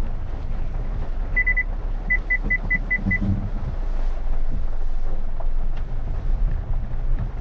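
Maruti Ignis running, heard from inside the cabin, with its reverse parking sensor beeping a single high tone: three quick beeps, then six evenly spaced beeps at about five a second, while the car is in reverse.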